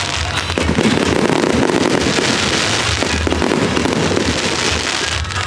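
Aerial fireworks bursting in a dense barrage: a continuous mass of overlapping bursts and crackle with low booms underneath.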